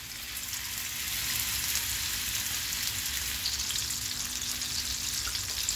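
Raw mutton-mince kebab patties sizzling as they shallow-fry in hot oil. The sizzle grows louder over the first second or so as more patties go into the pan, then holds steady.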